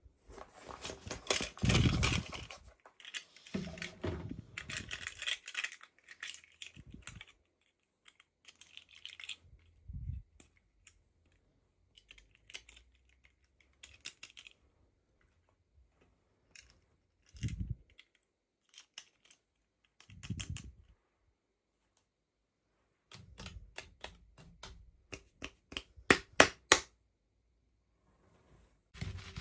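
Hands unboxing small toys: intermittent rustling and crinkling of packaging with scattered clicks and taps, and a quick run of sharp clicks near the end.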